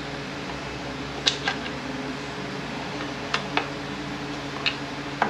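A few light metallic clicks and clinks of small transfer-case parts being handled, over the steady hum of a shop fan.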